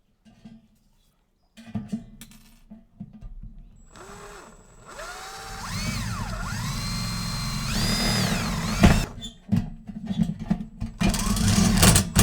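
Power drill boring a hole in the equipment case for a switch. Its motor whine rises and falls in pitch as the trigger is varied, and it gets louder and harsher near the end as the bit cuts through.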